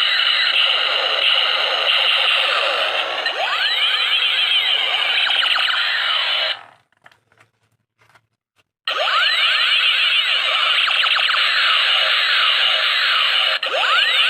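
Electronic warbling tones sweeping up and down and overlapping one another, like a toy's sound-effect chip. It cuts out for about two seconds in the middle, then starts again.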